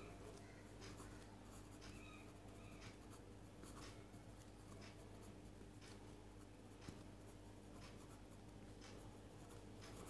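Pen writing on paper: faint, irregular scratches and taps of handwriting strokes.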